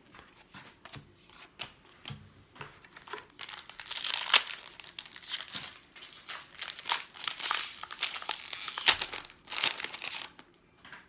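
Plastic wrapper of a 2014 Panini Prizm baseball card pack crinkling and tearing as it is handled and opened. A few light clicks come first, then about seven seconds of dense crinkling in clusters.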